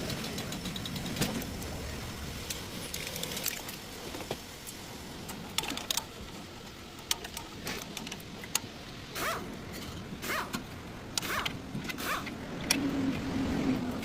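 Metal clicking and clinking of hand tools and parts handled during front brake work, with a short low hum near the end.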